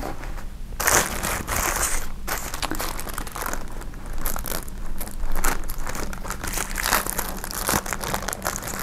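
Takeout food wrapping crinkling and rustling as a bagel sandwich is unwrapped by hand. It starts about a second in and goes on as a run of irregular crackles.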